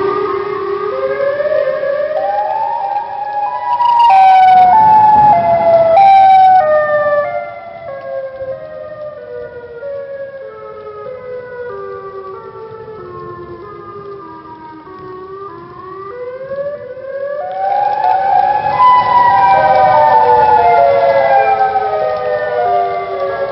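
Siren Head creature sound effect: several layered siren tones stepping down in pitch note by note, loudest a few seconds in, dipping in the middle, then sliding up and stepping down again.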